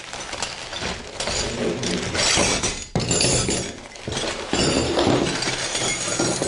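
A bag of loose steel wrenches clattering and clinking against each other as they are handled and tipped out.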